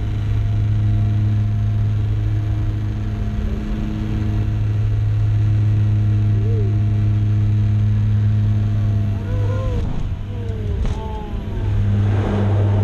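Turboprop engines and propellers of a small twin-engine airliner heard from the cockpit on final approach: a steady low drone that fades out for a couple of seconds late on, with a few short gliding tones, as power comes back for landing. Near the end, as the plane reaches the runway, the drone returns with a louder rush of noise.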